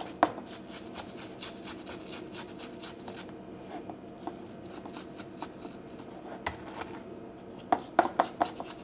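Stiff bristle brush wet with acrylic thinner scrubbing the electrode and threads of a generator spark plug in quick scratchy strokes, clearing off carbon deposits. A few sharper taps near the end.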